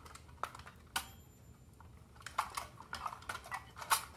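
Thin metal pry tool clicking and scraping against the tab-fastened metal body of a toy robot as the front shell is levered off the back. The clicks are sharp and irregular, one or two early on, then a quick run of them from about two seconds in, the loudest near the end.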